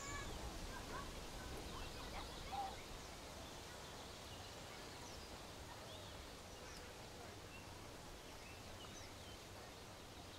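Faint countryside nature ambience: scattered short bird chirps over a steady soft background, busiest in the first three seconds, with one louder, lower call about two and a half seconds in.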